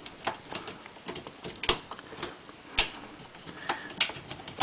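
Scattered sharp plastic clicks and taps from the plastic stops of a dishwasher's upper rack being unlatched and handled. Two louder snaps come about a second apart near the middle.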